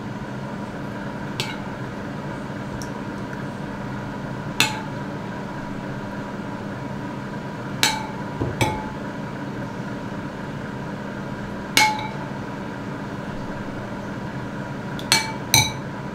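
A metal spoon clinking against a ceramic bowl as amba sauce is scooped out: about seven sharp, short clinks, each ringing briefly, spaced irregularly, over a steady hum.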